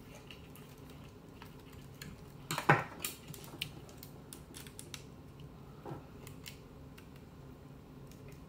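Small clicks and scrapes of a screwdriver and tiny screws as a Trimline telephone's dial is screwed back into the handset. A louder knock comes a little under three seconds in, and a smaller one near six seconds.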